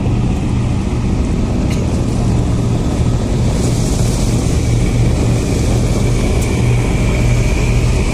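Boat engine running steadily, a loud, even low drone.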